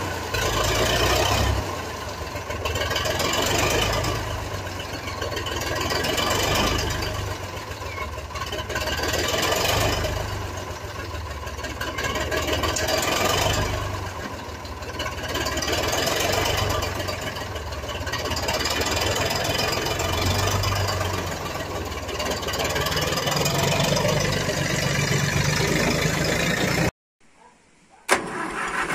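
Old Zetor tractor's diesel engine running cold just after starting, its sound swelling and fading about every two and a half seconds. It cuts off near the end.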